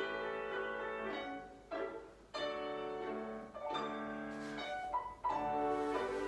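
Solo piano accompaniment for a ballet barre exercise, playing slow chords that change about every second and a half.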